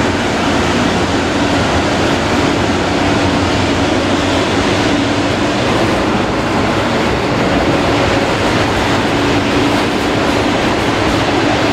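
Loaded container wagons of a freight train rolling past, a steady rumble of steel wheels on the rails with a faint droning tone underneath.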